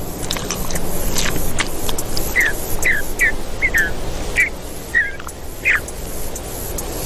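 Short chirping animal calls, about seven quick falling notes spread over a few seconds, with scattered sharp clicks and rustling.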